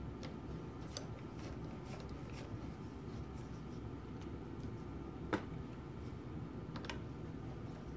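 Faint clicks and light scraping of small steel parts and screws being handled and fitted on a Linotype knife block, with one sharper metal click about five seconds in, over a steady low hum.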